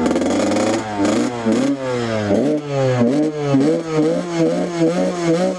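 Dirt bike engine revving, its pitch rising overall and then swelling up and down in quick repeated throttle blips.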